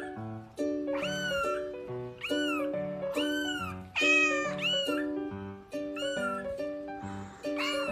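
Very young kitten mewing repeatedly: about ten short, high-pitched mews, each rising and then falling in pitch, over light background music.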